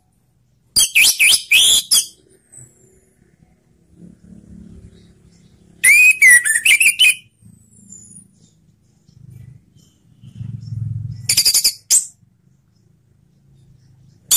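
Orange-headed thrush singing: three short phrases of rapid, high, warbling notes, each about a second long, with pauses of several seconds between them.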